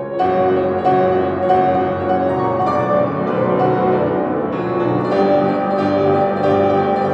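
Grand piano playing classical music, a solo recital piece. A louder, fuller passage begins right at the start, with notes struck in a steady stream about every half second or so over sustained chords.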